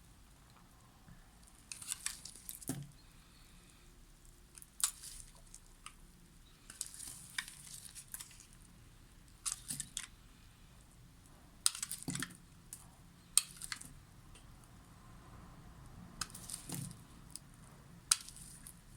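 A knife cutting through a bar of soap in short strokes, each a crisp, crackly scrape, about every two seconds, with a few soft thuds among them.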